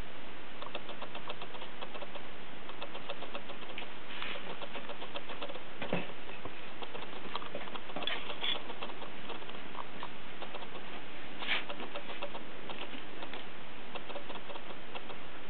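Kittens' paws and claws pattering and scratching, with light clicks and a few louder scratches, over a steady background hiss. Near the end a kitten is standing in a litter box, scuffing the litter.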